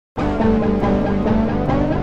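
Intro music with a steady beat and a heavy low end, starting abruptly just after the opening.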